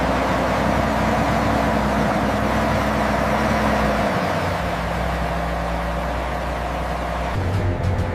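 Heavy multi-axle truck engine running steadily, a deep hum under a wide rushing noise, its note dropping slightly about halfway through.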